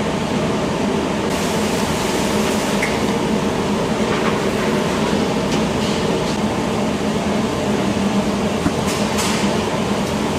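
Steady mechanical hum of commercial kitchen machinery and ventilation, with a few light clatters.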